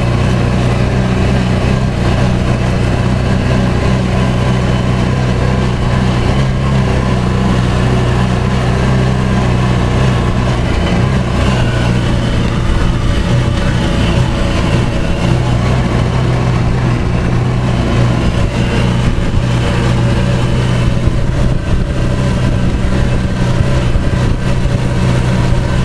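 A motor vehicle's engine running at a steady speed while driving, a constant low drone with no change in pace.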